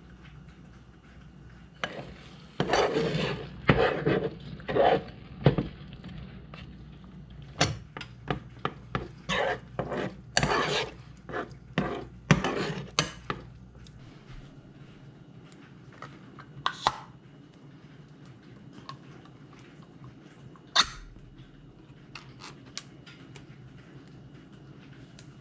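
Metal spoon scraping and clinking against a small stainless steel saucepan while stirring shredded cheddar as it melts, in an irregular run of strokes for about twelve seconds. After that it goes quieter, with a few single clicks.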